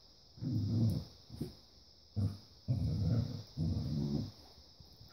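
Dogs growling in play while wrestling: five low growls of up to about a second each, with short pauses between.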